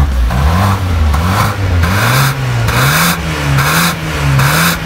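BMW F10 523i engine revved in a quick series of throttle blips through a valvetronic exhaust with Akrapovic tailpipes, the exhaust valves switched off. Its pitch rises and falls again and again, settling into a steady rhythm of roughly one rev a second.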